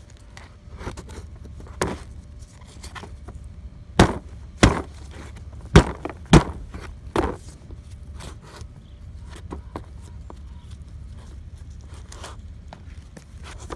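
The plastic and metal housing of a Detroit DD15 crankcase breather clicking and knocking as it is handled and turned over. There is a run of five sharper knocks in the middle, over a steady low rumble.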